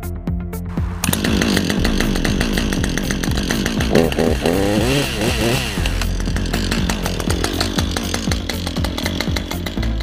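Husqvarna two-stroke chainsaw engine running. It comes in suddenly about a second in and is revved up and down a few times around the middle.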